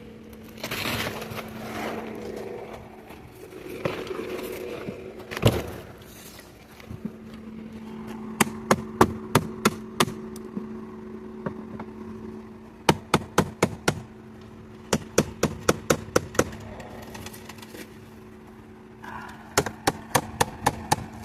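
A hand tool working a stuck part of a scrap item: a few scattered knocks, then several short runs of sharp clicks, about five a second, over a steady low hum.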